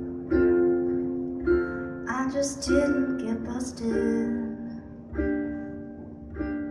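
Ukulele strummed in slow single chords, each left to ring and fade, about one a second. A woman sings a short phrase in the middle.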